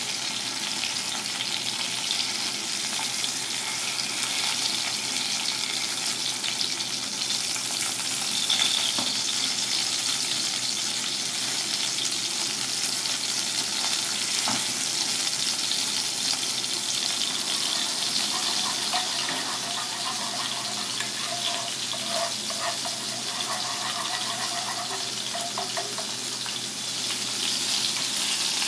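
Hot oil sizzling and crackling steadily as food fries.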